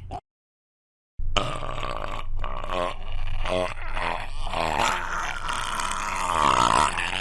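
A man belching loudly, in long drawn-out burps that waver and slide in pitch, after about a second of dead silence near the start.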